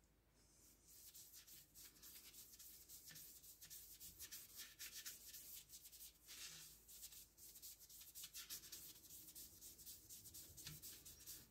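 Red wood dye being rubbed by hand onto the bare surface of a turned monkey puzzle wood vase. It makes faint, irregular, hissy rubbing strokes, a few a second, that come and go with the hand's movement.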